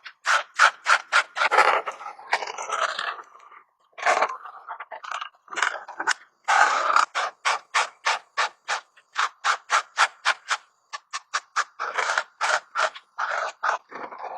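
Rapid back-and-forth strokes of a coloring tool scraping across paper, about five strokes a second. A few strokes are longer and smeared, with short pauses between runs.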